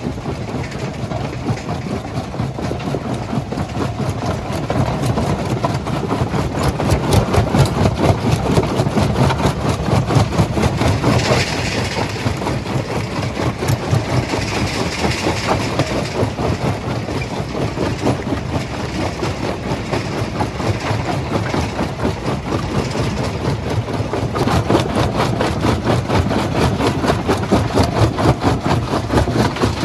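Heavy machinery at a stone crushing plant running: a deep engine drone with a fast, even pulsing throughout, swelling louder in a couple of stretches.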